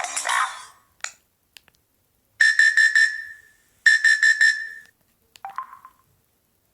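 LG KC550 mobile phone's loudspeaker playing its ringtones. One tune ends in the first second and a key click follows. Then a high, rapidly pulsing ring tone sounds in two bursts about a second and a half apart, followed by a short beep near the end.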